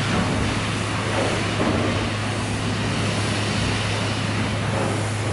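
Butterley low-pressure condensing beam engine in motion: a steady low hum under a rhythmic whooshing that swells and fades every second or so as the beam rocks.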